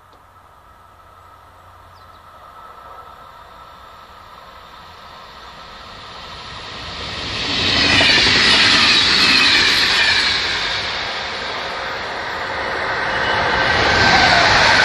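Older blue-and-white suburban electric multiple unit (HŽ class 6111) passing at about 120 km/h. Wheel-and-rail noise builds as it approaches, is loudest as it goes by about eight seconds in, then fades. Near the end the sound rises again as a second electric train approaches.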